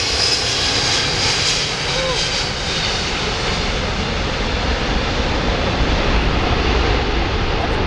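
McDonnell Douglas DC-10 trijet on landing approach with gear down, its jet engines giving a loud, steady rumble as it passes and moves away. A high engine whine fades over the first two or three seconds while the low rumble holds.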